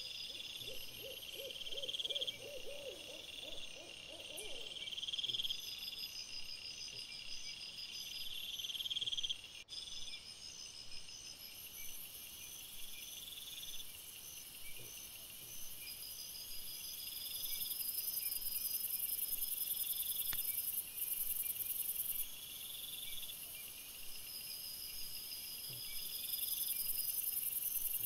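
Night insects, crickets or bush-crickets, chirping in steady repeating pulses, sped up to double speed. In the first few seconds a short quavering series of lower pulses sounds, like an owl's hoot, and a single sharp click comes near the middle.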